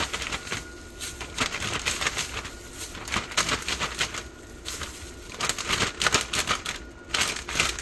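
Zip-top plastic bag crinkling and rustling as raw chicken pieces are put into it and the bag is handled, with a clear plastic glove rustling too; irregular crackly bursts throughout.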